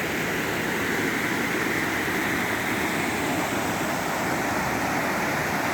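Waterfall pouring into a pool, a steady, unbroken rush of water heard close up.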